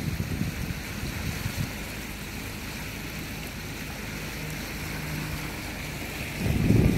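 Sailing yacht motoring across calm water: a steady rush of water along the hull with the engine running beneath it. Wind buffets the microphone in the first second or so and again near the end.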